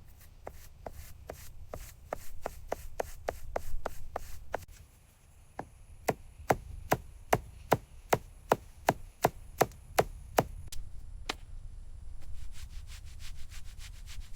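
Hand tools working wood during carving: a series of sharp, evenly spaced taps over a low steady hum. The taps come at about two and a half a second and are loudest in the middle, fainter and quicker near the end.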